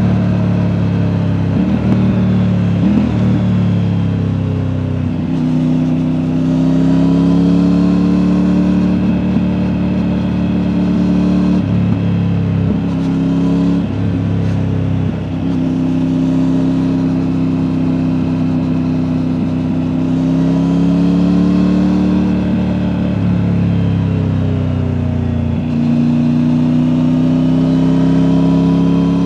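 Triumph Tiger 900's three-cylinder engine through an Akrapovic exhaust, heard from the rider's back while riding. The engine note climbs and then drops to a new pitch about five times, as through gear changes, between stretches of steady running.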